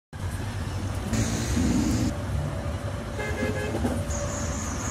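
Road traffic noise with engines rumbling, cutting in suddenly, and a vehicle horn tooting briefly about three seconds in.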